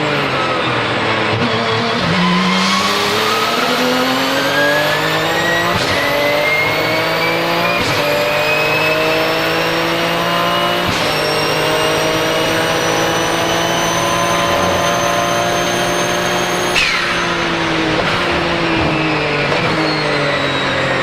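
Twin-turbo 3.9-litre flat-six of a Porsche 997 GT2 RSR accelerating hard, with a high whistle climbing with the revs. Three quick upshifts of the sequential gearbox come about 6, 8 and 11 seconds in. Near the end the driver lifts off: the revs drop with a short falling whistle, then the engine climbs again.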